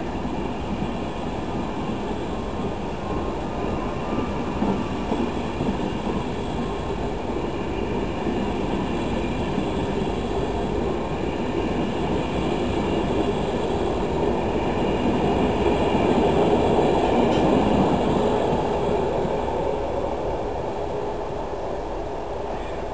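East Coast passenger train's coaches running past close alongside the platform: a steady rumble of wheels on rail that swells about two-thirds of the way through and then eases off as the end of the train goes by.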